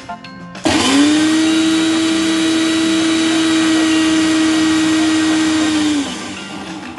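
Personal blender grinding dried roasted garlic into powder: the motor spins up quickly about a second in, runs loud and steady at one pitch, and winds down near the end.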